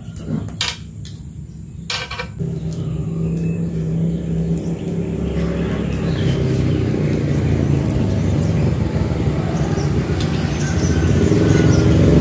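A few short rasps in the first two seconds, then a steady low engine hum sets in and grows gradually louder.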